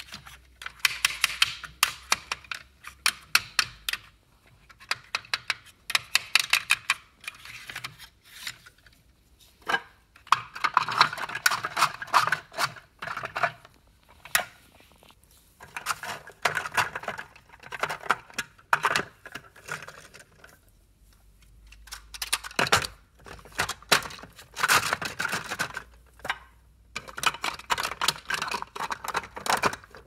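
Clay-style poker chips clacking against each other and the clear plastic tubes of a Matsui chip rack as the chips and racks are handled, with the rack giving a slight rattle. The clicking comes in bursts of rapid clicks a few seconds long, with short pauses between.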